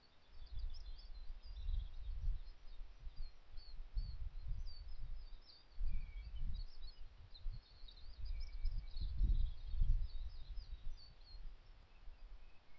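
Low gusts of wind buffeting the microphone, swelling and easing several times, with small birds twittering high and thin throughout and a few lower chirps.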